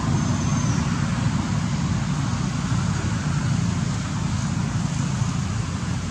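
Steady low rumble of outdoor background noise, with a brief faint high whistle near the start.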